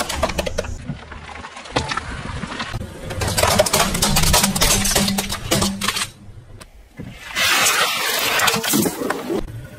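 A car tyre rolling over and crushing plastic objects: a long run of sharp cracks and crackles as plastic gives way under the wheel. A dip follows, then a short stretch of dense hissing noise from the tyre on the ground near the end.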